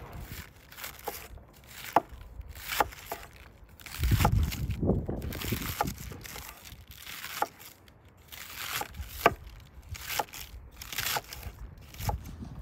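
Cabbage sliced into shreds with a large kitchen knife on a wooden cutting board: crisp crunching cuts, many ending in a sharp knock of the blade on the board, at an irregular pace of about one a second. A brief low rumble comes about four seconds in.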